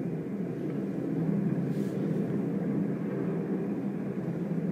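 Black Hawk military helicopters hovering close by: a steady, low rotor and engine drone with no breaks, heard through a window.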